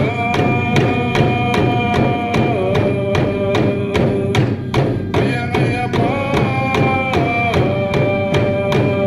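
Torres Strait Islander dance music: a drum beating steadily about three times a second under singing that holds long notes, stepping down in pitch about two and a half seconds in and back up about six seconds in.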